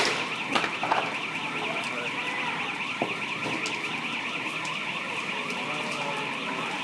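An electronic alarm warbling fast and without a break, with a few sharp pops from the burning building, the loudest at the very start and about a second in.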